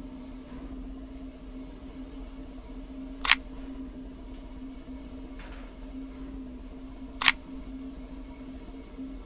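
Two camera shutter clicks about four seconds apart, over a steady low hum.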